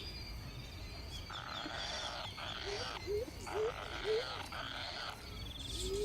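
Hungry nestling birds calling: repeated raspy, hissing calls, each half a second to a second long. In the middle comes a run of four short, low, rising-and-falling notes, and near the end a low rising note, with faint high trills in the background.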